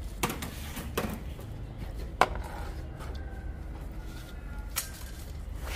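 Four sharp knocks, the loudest about two seconds in, over a low steady rumble.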